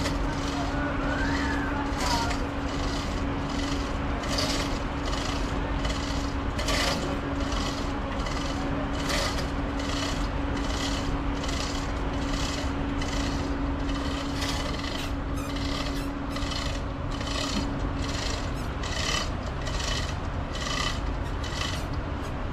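Ferry machinery running with a steady low hum, overlaid by a regular rasping stroke that repeats a little more than once a second.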